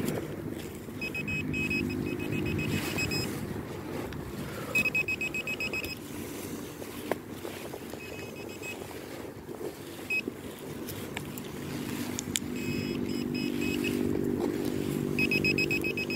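Handheld metal-detecting pinpointer sounding in several short bursts of rapid beeps as it is worked through a dug hole, closing in on a buried metal target. A low hum sits under some of the bursts, and a few knocks and scrapes come from the soil being worked.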